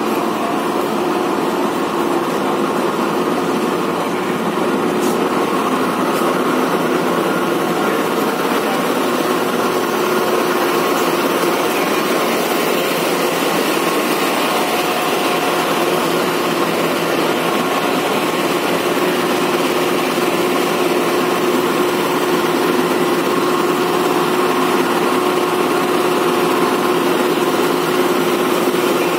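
Diesel engine of a Sri Lankan diesel multiple unit's power car idling while the train stands at the platform: a loud, steady hum that holds one pitch.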